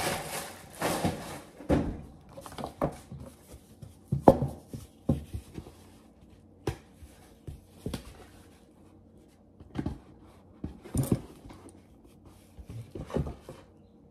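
Handling noises from unpacking and setting up a black velvet necklace display stand: scattered knocks, taps and rustles at irregular intervals, with plastic wrapping crinkling in the first second or two.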